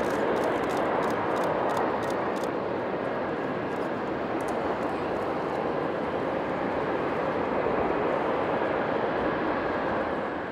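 McDonnell Douglas MD-11 tri-jet freighter landing: steady jet engine noise as the main gear touches down and the aircraft rolls out along the runway, swelling slightly near the start and again later on.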